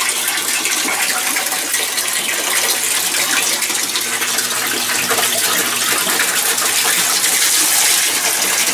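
Steady rush of water draining out of an aquaponic grow bed through its bell siphon, getting a little louder towards the end.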